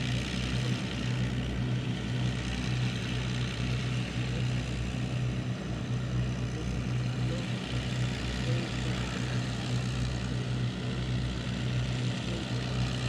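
Rolls-Royce Merlin piston aero engines running steadily, a low even drone.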